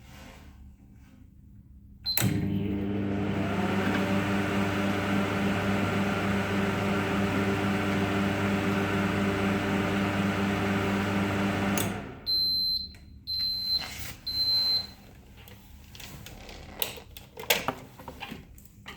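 Microwave oven switched on with a click, running with a steady electrical hum for about ten seconds before cutting off. Three short high beeps follow, about a second apart, marking the end of the cycle, then a few sharp clicks near the end.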